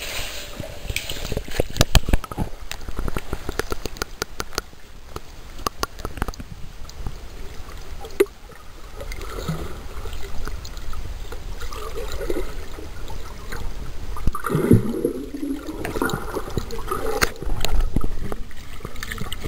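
Water gurgling and sloshing around a camera held underwater, muffled as heard below the surface. A quick run of sharp clicks and knocks comes in the first few seconds, and later uneven bubbling and gurgling.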